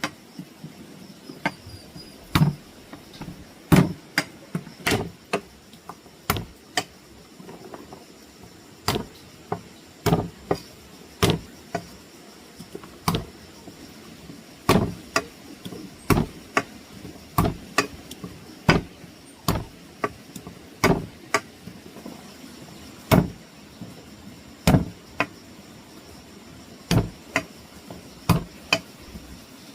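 An irregular series of sharp chopping or knocking strikes, roughly one to two a second, each short and distinct.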